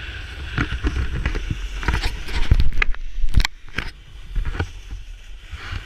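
Wind buffeting a handheld action camera's microphone during a snowboard run, with the board hissing and scraping over packed snow. A quick series of sharp knocks and clicks comes about two to three and a half seconds in.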